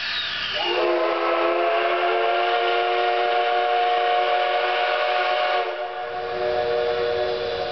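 Steam whistle of the JNR Class C58 steam locomotive C58 363 blowing its departure signal: a hiss of steam, then about a second in one long blast of several notes together that holds for about five seconds before falling back to hissing steam.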